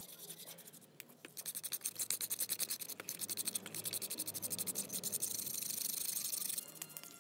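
A bristle brush scrubbing a wet, rusty metal engine part in rapid back-and-forth strokes. It starts about a second in and stops abruptly near the end.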